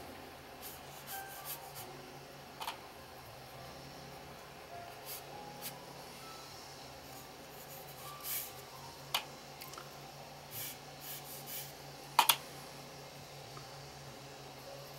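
Paintbrush rubbing across textured watercolour paper in short, soft strokes, with a few light clicks, the sharpest about twelve seconds in. A faint steady low hum runs underneath.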